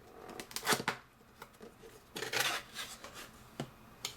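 Cardboard box being opened by hand: short scrapes and rustles of cardboard and paper, with a few sharp clicks, the loudest scrape just under a second in.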